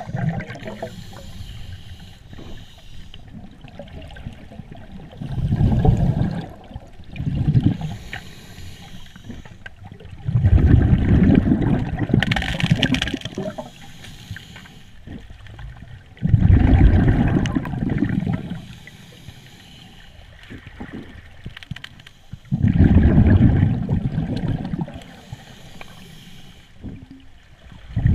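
A scuba diver breathing through a regulator, heard underwater: about five bursts of bubbling exhaust bubbles, each lasting one to three seconds, with quieter gaps between breaths.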